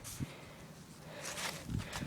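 Faint rustling and light footfalls of dogs moving about on the ground, with a small knock about a quarter second in.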